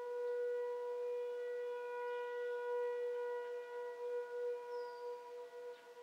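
Perry Nuclear Power Plant emergency warning siren sounding a steady tone during its scheduled monthly test. The pitch holds level throughout, with slow swells in loudness.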